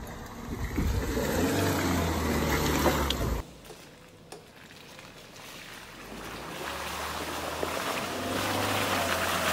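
Suzuki Jimny JB74's 1.5-litre four-cylinder petrol engine running under load as the four-wheel drive crawls off-road, cutting off suddenly about three seconds in. It then builds again as the Jimny approaches, its tyres working through mud and water.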